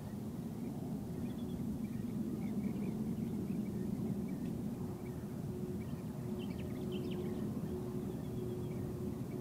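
Distant Airbus KC-30A (A330 MRTT) tanker's jet engines running at low power as it rolls slowly along the runway after landing: a steady low rumble with a faint hum, a little louder from about two seconds in. Small bird chirps sound above it.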